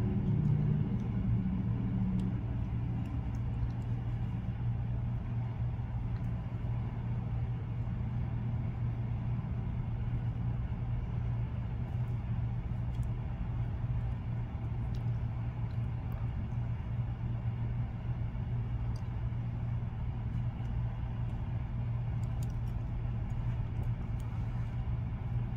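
A steady low hum that does not change, with a few faint small ticks scattered through it.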